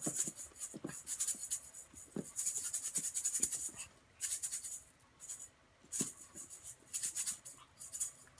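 A maraca shaken in bursts of quick rattles, with a brief pause a little past the middle, while a Chihuahua puppy jumps at it; a few soft thumps now and then.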